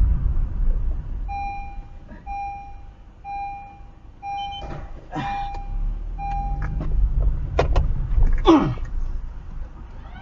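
Low vehicle rumble as a car slows almost to a stop, with an electronic beep repeating about once a second for several seconds. A few sharp knocks follow, then a short sound falling in pitch.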